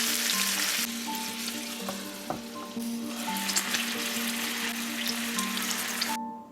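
Food sizzling as it fries in a hot pan, with a couple of light utensil knocks about two seconds in. The sizzle eases after about a second, swells again, then cuts off suddenly near the end.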